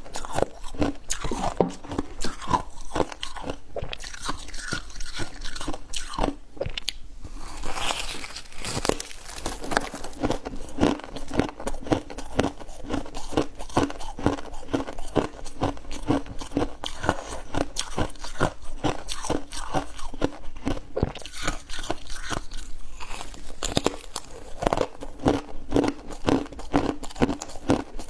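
Crunchy ice being bitten and chewed: dense, irregular crisp crunches throughout.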